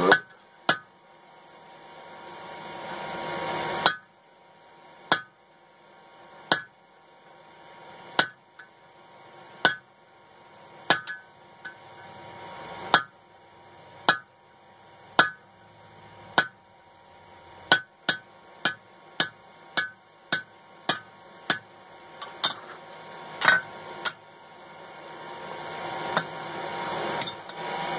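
Hand hammer striking a red-hot bar of coil-spring steel on an anvil: about two dozen single blows, each a sharp metallic clank with a short ring. The blows come a second or more apart, speed up to a quick run of two or three a second past the middle, then space out again.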